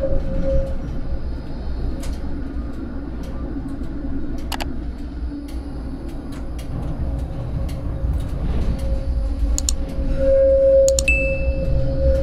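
Vario LF2+ low-floor tram running, heard from the driver's cab: a steady low rumble and a hum from the drive that grows louder near the end, with several sharp clicks and a brief high beep near the end.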